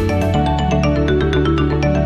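Background music: a bright tune of quick, evenly spaced struck notes over a steady bass line.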